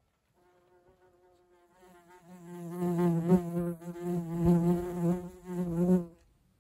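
A wasp buzzing close to the microphone. The buzz is faint at first, grows loud about two seconds in, rises and falls as the insect moves around, and stops near the end.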